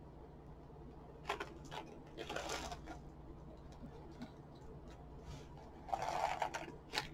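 Crinkling of a plastic candy bag and light clicks of candy-coated chocolates being handled, in a few short scratchy bursts over a low steady hum.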